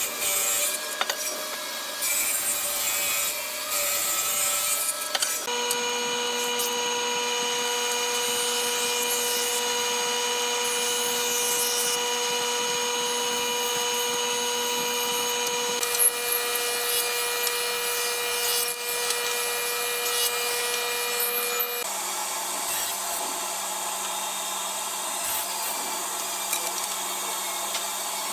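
Woodworking machines running with a steady machine hum: a jointer planing hardwood boards, then, from a change about three-quarters of the way through, a table saw running and cutting wood.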